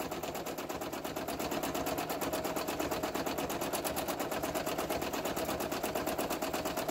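Sewing machine stitching steadily at speed during free-motion quilting, with the free-motion foot on and the feed dogs lowered: a rapid, even run of needle strokes over a steady motor hum.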